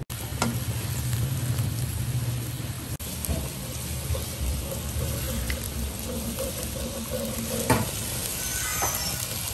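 Pufferfish pieces sizzling in a hot wok in oil and dark sauce while a metal ladle stirs them, with a couple of sharp knocks near the end.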